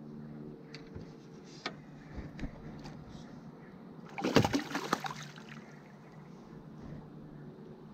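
Water splashing for about a second, a little past the middle, after a few light clicks, over a low steady hum.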